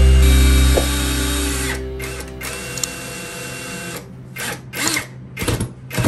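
Makita cordless drill-driver running as it drives a screw into a wooden base. It is loud at first, drops off about a second in, runs more quietly, and stops about four seconds in. Background music follows in the last two seconds.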